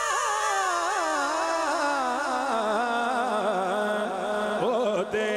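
A man singing a drawn-out melismatic line of a Punjabi naat into a microphone over a PA, without clear words. The pitch wavers and slowly falls, and there is a brief break near the end.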